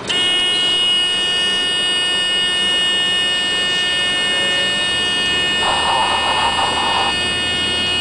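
A loud, steady high-pitched buzzing tone made of several pitches at once. It starts abruptly and holds unchanged, with a short burst of hiss about six seconds in.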